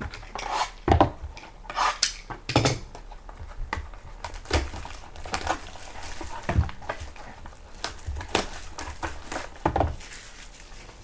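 Topps Triple Threads card boxes being unwrapped and handled: plastic wrap is cut and pulled off, and the boxes are knocked and set down on the table in a string of irregular sharp knocks and clatters with crinkling between them.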